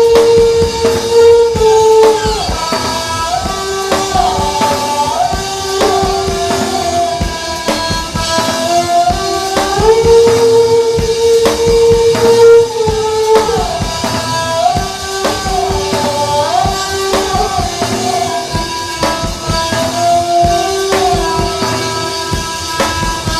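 Rock-style music: a lead melody of long held notes that slide up and down between pitches, over a steady drum beat.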